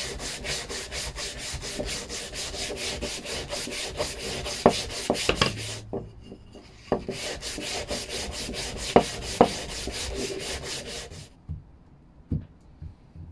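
Hand-sanding a sapele piece with abrasive paper, quick back-and-forth strokes at about four or five a second, with a few sharp wooden knocks among them. The strokes run in two spells with a short pause about halfway, and stop about two seconds before the end.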